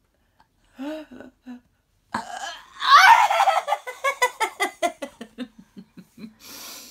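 A fit of laughter: a loud, high squealing outburst about three seconds in that breaks into quick, rhythmic ha-ha pulses and fades away.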